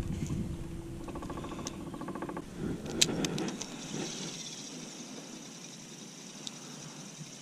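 Spinning reel being cranked during a retrieve, giving a fast, even run of clicks for about a second and a half over a low steady hum that stops about two and a half seconds in. A single sharp click follows, then only a faint steady hiss.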